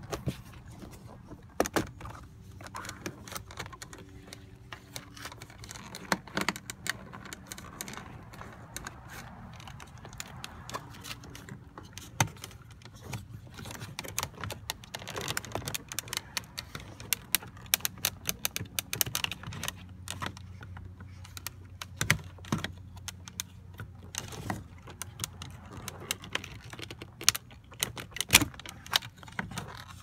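Scattered plastic clicks, snaps and rattles as a car's power window master switch panel is prised out of the door armrest trim and its wiring connector is handled and unplugged. A low steady hum runs underneath.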